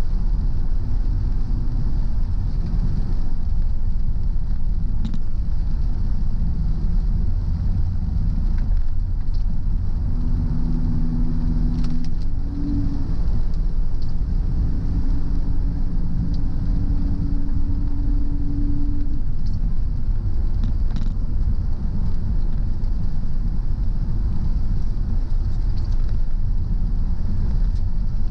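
Car driving along a road, with a steady low rumble of engine and road noise. A faint engine hum comes in about a third of the way through and steps up in pitch about halfway.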